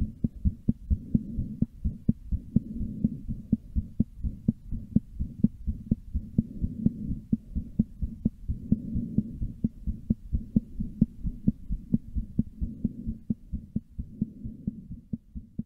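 Recorded human heartbeat, beating fast: an even run of low thumps over a steady low hum, growing fainter near the end.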